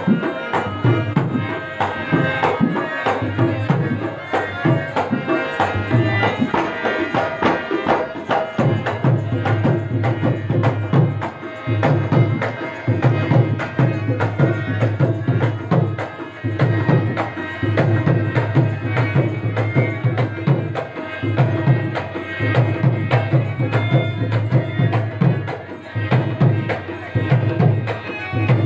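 Devotional qawwali-style music with tabla drumming keeping a steady beat under pitched melody.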